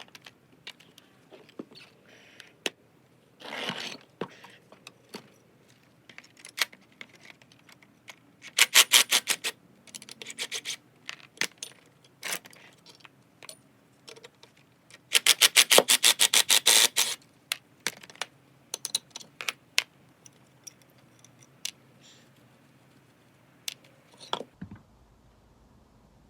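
Metal hand tools clinking and scraping on car suspension parts, with two runs of rapid, even clicking from a ratchet wrench about nine and fifteen seconds in.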